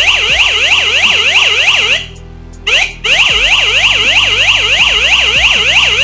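Siren IC driving a small loudspeaker on a tripwire burglar-alarm circuit, sounding a loud electronic warbling siren that sweeps up and down about four times a second. It is set off by the tripwire being broken. It cuts out about two seconds in, gives a short burst, then sounds again until it stops abruptly at the end as the wire is rejoined.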